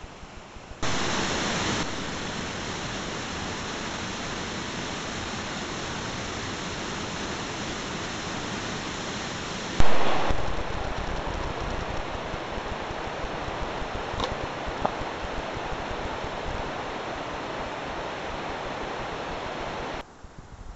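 Waterfall rushing: a steady, even hiss of falling water that starts abruptly about a second in, jumps louder for a moment near the middle, and cuts off suddenly near the end.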